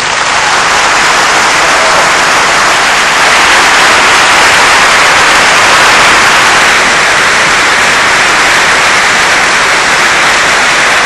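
Large audience applauding in a concert hall, loud and steady.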